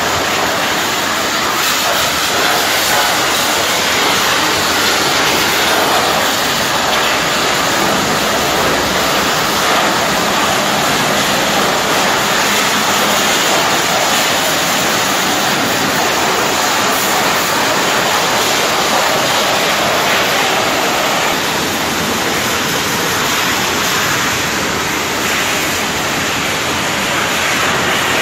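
Pressure washer jet spraying water onto a truck's engine and chassis: a loud, steady hiss of water.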